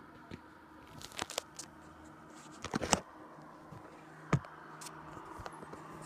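Handling noise from a phone camera being swung about: rustles, scrapes and knocks on the microphone, loudest near three seconds in, with one sharp knock just after four seconds. Underneath runs a faint, steady engine hum.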